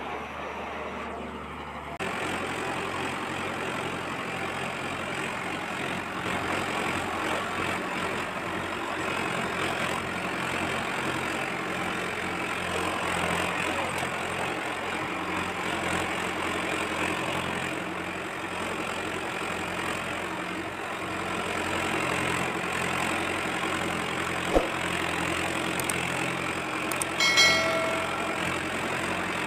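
Steady engine-like idling sound. There is a sharp click about three-quarters of the way through, and a brief chiming sound effect near the end.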